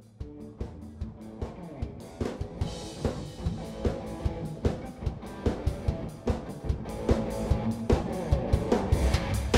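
Rock band music: a drum kit keeping a steady beat over bass and guitar, fading in and growing louder through the first several seconds.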